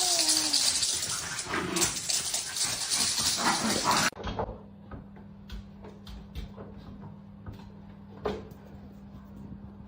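A dog whimpering and yipping over loud hissing noise, which cuts off abruptly about four seconds in. A quiet steady low hum with a few faint clicks follows.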